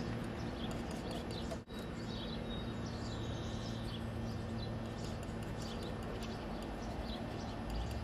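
Outdoor garden ambience: birds chirping now and then over a steady background noise with a low hum. The sound drops out for an instant about a second and a half in.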